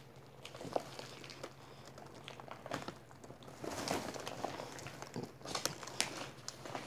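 Wrapping paper around a small dog rustling and crinkling faintly as the dog shifts, with scattered light clicks and taps; busiest about four seconds in and again near six seconds.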